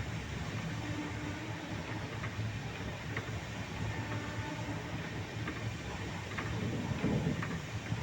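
A moving train, a steady low rumble with a few faint clicks scattered through it.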